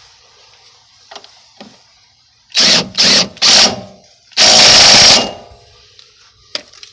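A power tool is run in three short bursts, then in one longer burst of just under a second, while working on a Honda Civic strut and coilover install.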